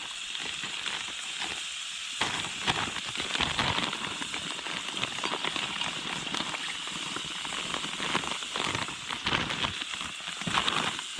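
Food sizzling and crackling in a frying pan, a steady hiss with irregular pops and a few louder clicks, one sharper one near the end.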